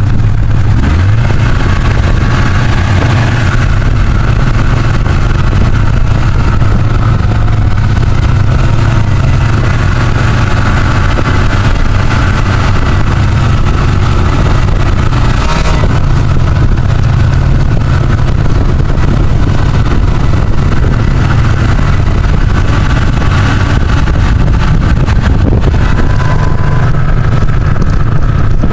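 Polaris snowmobile engines running as the sleds ride through snow, a steady loud drone with a heavy low rumble.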